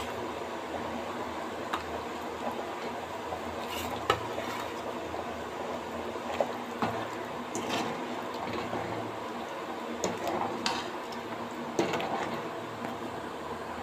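A thin, watery curry bubbling at a boil in a metal pot while a metal ladle stirs it. The ladle gives a few sharp clinks against the pot.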